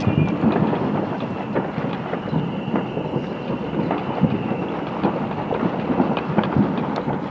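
Many distant fireworks going off at once across a town, merging into a continuous rumble and crackle with frequent sharp bangs. A faint whistle runs for about two seconds in the middle.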